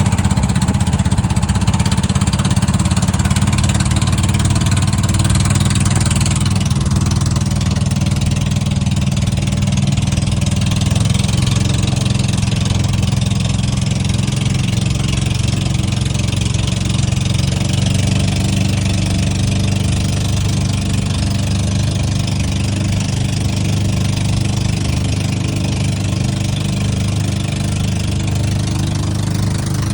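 An engine running steadily at an even speed, a constant low hum throughout.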